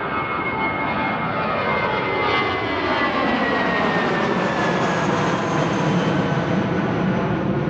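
Airbus A320 jet engines at take-off power: a loud, steady roar with a high whine that slowly falls in pitch as the airliner passes.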